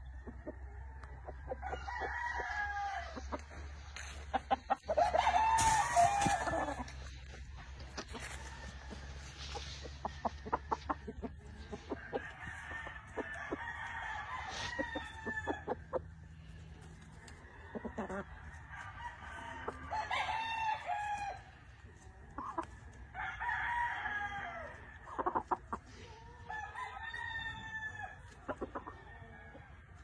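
Gamefowl roosters crowing over and over, about six long crows spread through, the loudest about six seconds in, with clucking and scattered sharp clicks between.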